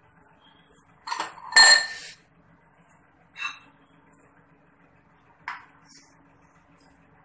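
Steel spoon clinking against a metal saucepan a few separate times. The loudest clink comes about one and a half seconds in and rings briefly.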